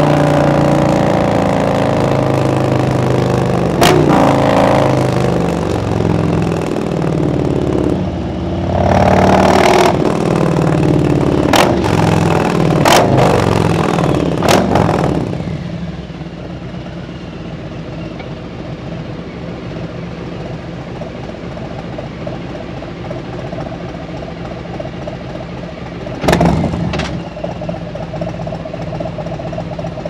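2017 Harley-Davidson Road Glide Special's Milwaukee-Eight V-twin engine under way, its pitch falling and changing as the bike slows, with a few sharp loud bursts, then settling to a steady idle about halfway through as the bike stands in traffic. A brief louder burst comes near the end.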